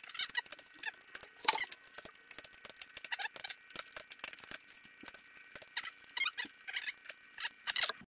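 Ratchet torque wrench clicking in quick runs, with metallic squeaks, as the bolts of a Kennedy Stage 1 clutch pressure plate are tightened down onto a VW flywheel.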